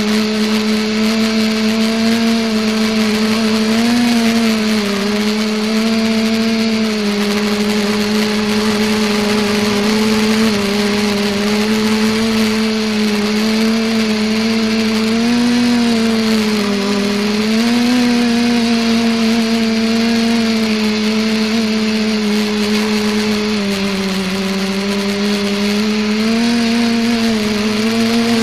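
Electric multicopter's motors and propellers humming steadily, as heard by a camera on the craft itself. The pitch wavers slightly up and down with throttle changes.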